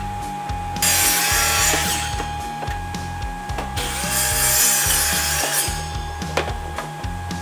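DeWalt compound miter saw crosscutting a rough walnut board, twice: a short cut about a second in and a longer cut about halfway through.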